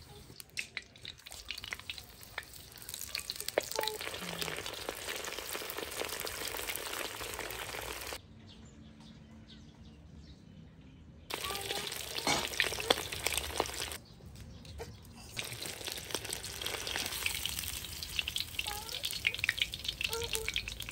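Lyulya kebabs frying in hot oil in a cast-iron kazan: a steady crackling sizzle with many small pops. It drops away twice, for about three seconds after the 8-second mark and briefly around 14 seconds.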